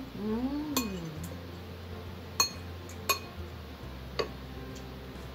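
Metal spoon clinking against a dish four times, each a sharp tap with a brief ring, as food is scooped up. A short rising-and-falling hum comes near the start.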